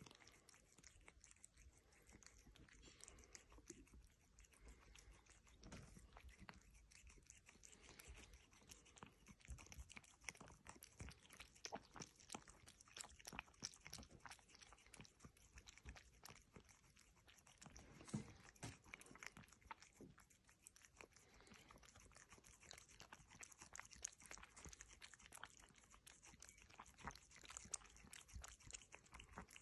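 A ginger cat licking and sucking milk from a feeding bottle's rubber nipple: faint, rapid, irregular clicks of tongue and mouth.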